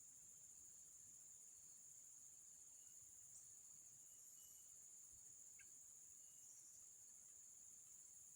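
Faint, steady, high-pitched insect chorus, with a few faint short chirps.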